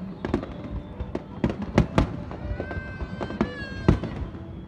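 Fireworks display bursting in quick succession, two or three sharp bangs a second. A drawn-out high tone sounds in the background in the middle.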